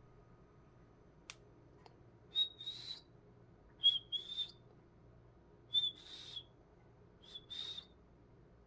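Cockatiel calling: four whistled two-part calls, each a short note followed by a longer, slightly raspy one, repeated about every one and a half to two seconds.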